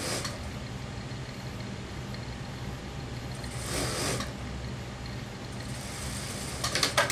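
Suit fabric rustling as it is smoothed and lined up by hand at an industrial sewing machine, over a steady low machine hum. There is a brief rustle about four seconds in and a short run of sharp clicks just before the end, the loudest part.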